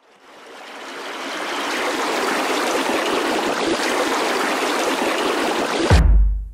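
Rushing water of a stream, a steady dense wash that fades in over about two seconds. About six seconds in it cuts off abruptly as a loud, deep drum hit begins.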